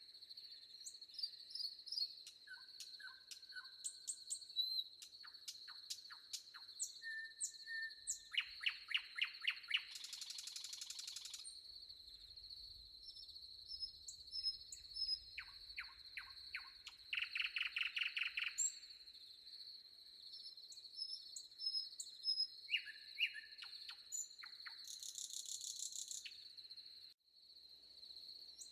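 Forest songbirds calling and singing: scattered chirps and whistles, plus two fast trills of rapidly repeated notes. Under them runs a steady high-pitched drone. There is a brief break in the sound near the end.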